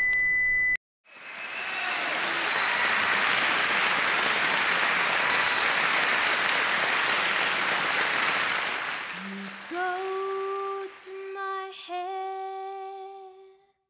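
A steady high beep cuts off within the first second. Applause swells and dies away over about eight seconds. A woman then sings long held notes.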